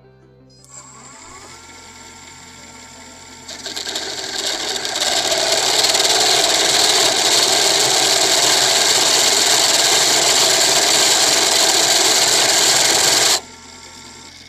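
Hand-held texturing tool pressed against a small wooden top spinning on a wood lathe, cutting a diamond texture into its surface: a loud, even grinding noise that builds over the first few seconds, holds steady, and cuts off suddenly about a second before the end as the tool is lifted away.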